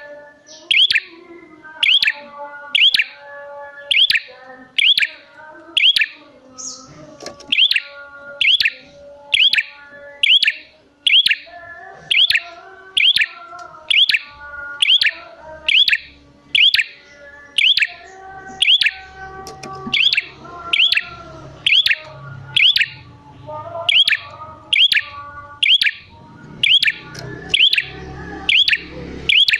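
Prenjak songbird giving a sharp, high call over and over at about one call a second, with softer twittering underneath. It is played as a lure to set other prenjak calling in reply.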